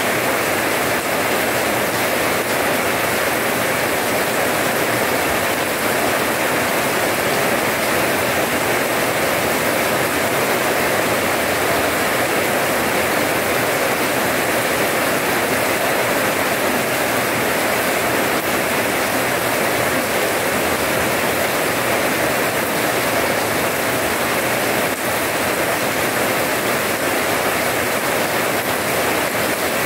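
Steady rain falling on a wet paved courtyard, splashing on the paving, with no change in strength.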